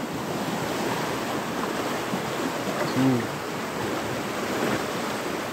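Fast-flowing muddy floodwater rushing and churning in a swollen stream: a steady, even rush of water.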